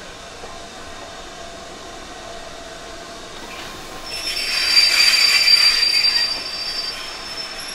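Train wheels squealing against the rails as a train moves slowly through the station, a high steady screech that swells about four seconds in and fades back after a couple of seconds, over the train's steady running noise.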